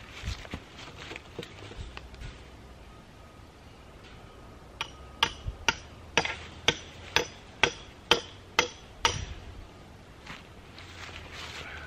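Hammer blows on metal with a slight ring, about eleven strikes in quick succession at a little over two a second, fastening welded wire fencing to a wooden fence post.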